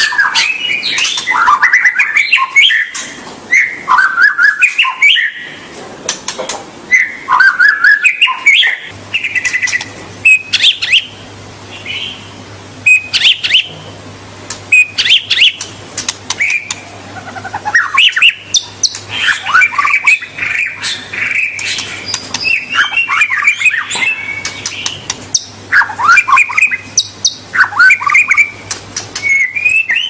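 White-rumped shama singing loudly: a long run of short, varied whistled phrases and chattering notes with brief pauses between them. A faint low hum comes in about nine seconds in.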